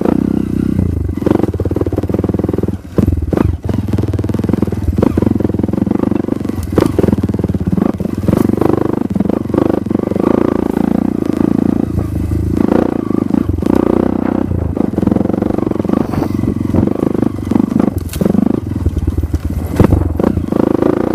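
Off-road dirt bike engine running hard on a rough trail, its pitch and level rising and falling as the throttle is worked. Frequent knocks and rattles come through from the bike jolting over rocks and ruts.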